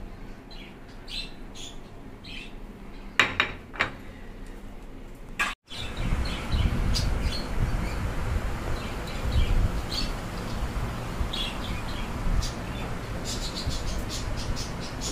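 Small birds chirping in short, repeated calls. A few sharp metal clinks sound about three seconds in, as a spatula lifts cooked fish from a steel pan into a glass bowl. After a break about halfway, a steady low rumble runs under the chirping.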